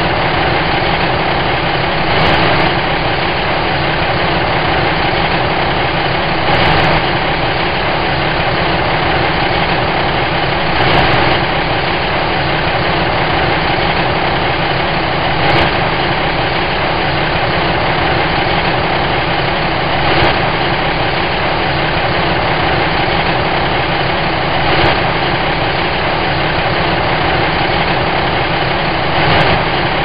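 Truck engine idling steadily, with a slight swell about every four and a half seconds.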